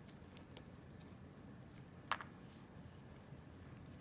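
Faint handling sounds of a steel magazine spring being wiped clean: light rubbing with a few small clicks and one sharper click about two seconds in.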